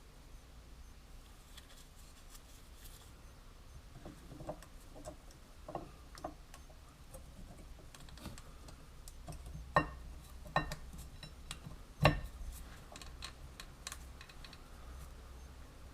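Scattered light clicks and knocks over a low hum, with three sharper, louder knocks in the last third.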